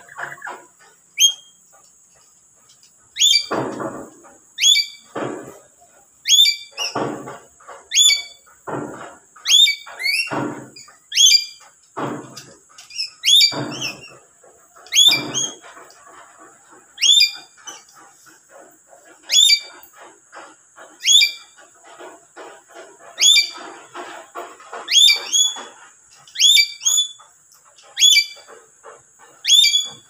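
Lory (nuri) giving loud, harsh, shrill screeching calls over and over, about one every one to two seconds, many of them quick doubled shrieks. The calls begin sparse and then come steadily from a few seconds in.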